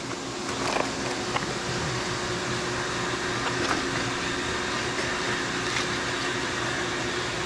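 Steady mechanical hum and whir of a Fanuc Robodrill CNC mill running a cut, with a few faint clicks of parts being handled.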